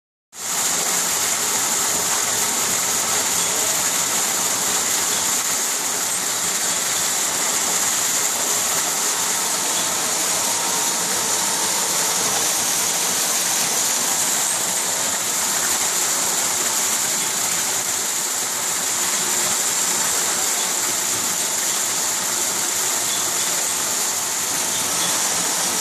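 A 2 hp electric centrifugal pump running steadily, its discharge pouring a strong jet of water into a tank: a continuous rushing splash of water with the pump running under it.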